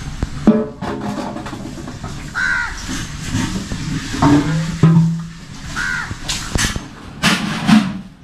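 Crows cawing, several separate caws a few seconds apart, with knocks and handling noises between them.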